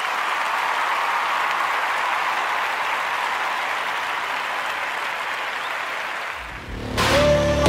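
Crowd applause, a steady even clatter that slowly fades. About six and a half seconds in, music with heavy bass cuts in.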